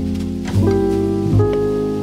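Background music: sustained chords that change twice, about half a second in and again near one and a half seconds.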